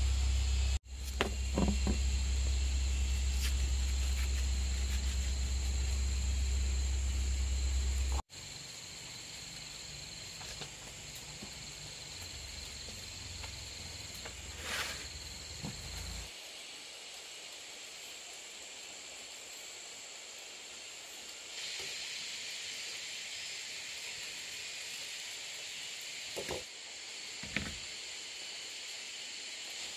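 A steady high-pitched insect chorus, like cicadas or crickets, with a few light clicks and knocks from handling food and a knife. A low hum is loudest early on and fades out about halfway through.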